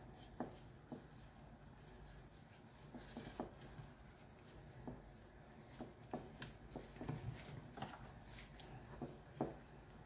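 A gloved hand rubbing spice seasoning into raw fish on a ceramic plate: faint soft rubbing with scattered light taps and clicks.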